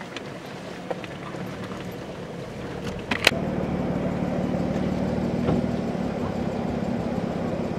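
Off-road vehicle's engine running steadily on a rocky mountain trail. A sharp click comes about three seconds in, after which the engine hum is louder.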